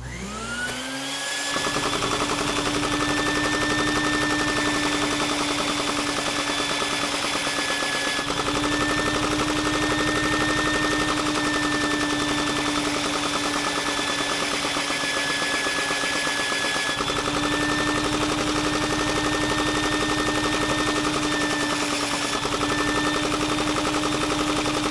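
A LEGO flathead poppet-valve vacuum engine running fast on a vacuum cleaner's suction, its pistons and valves making a rapid, steady clatter. Over it a vacuum cleaner's motor whine rises in the first second or so and then holds steady.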